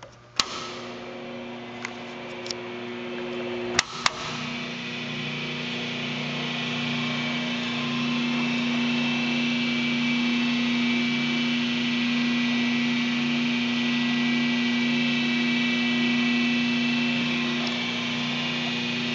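SCMI Sandya 3 wide belt sander running with a steady electric motor hum, switched on with a click. A second click about four seconds in changes the hum's pitch, and it then grows slowly louder.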